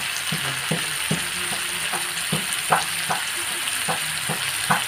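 Meat, potatoes and tomato frying with a steady sizzle in a metal wok while being stirred, the spatula scraping and knocking against the pan two or three times a second.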